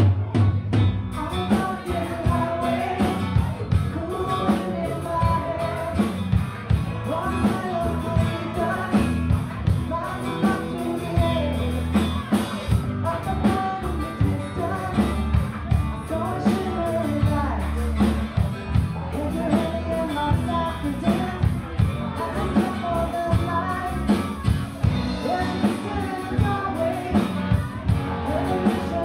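Live rock band playing with women singing lead: electric and bass guitar and a drum kit keeping a steady beat.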